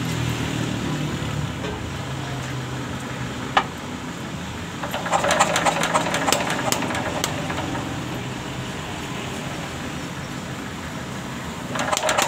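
186F single-cylinder air-cooled diesel engine running, its throttle opened about five seconds in and again near the end, each time bringing a rapid crackling knock. The engine misfires ("putok-putok") and smokes when throttled up, the fault being worked on through an injector nozzle adjustment.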